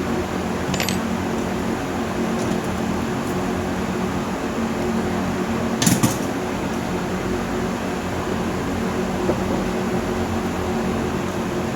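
Steady machine whir with a low electrical hum. A single short click or knock comes about halfway through.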